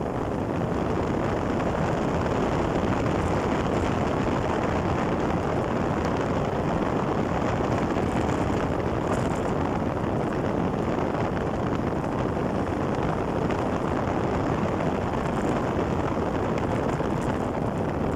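Steady rushing wind buffeting the microphone on a fast downhill ride, with no engine tone.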